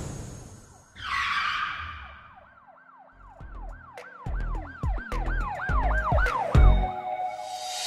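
A whoosh, then a siren-like yelp that rises and falls quickly over and over, about three times a second, over deep bass thumps that grow louder.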